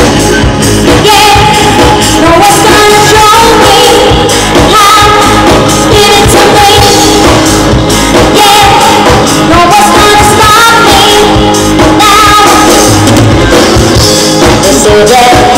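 Loud pop music with a singer, from a band playing through PA loudspeakers.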